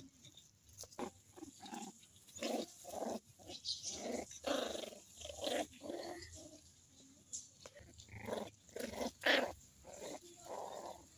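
Dogs play-fighting: a string of short, irregular growls and yaps in quick succession, the loudest about nine seconds in.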